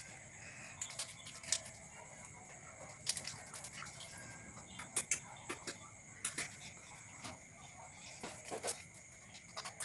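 Slime being kneaded by hand, giving irregular sticky clicks and pops, the loudest about 1.5, 3 and 5 seconds in.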